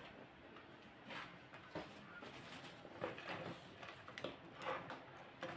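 Faint rubbing and handling of a tissue wiping the heating element of a laser printer's fuser, with a few light clicks and taps of the part against the bench.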